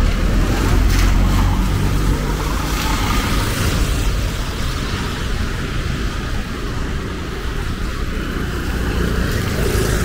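Motor traffic on a wet city street: a steady low engine rumble with the hiss of tyres on the wet road. The rumble is strongest in the first few seconds.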